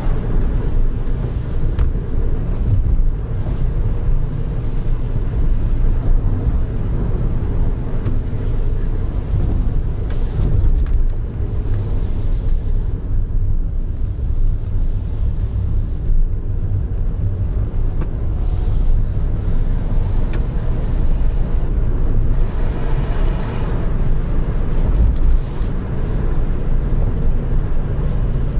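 Car driving, heard from inside the cabin: a steady low rumble of engine and tyres on the road. About two-thirds of the way through there is a brief patch of higher-pitched noise.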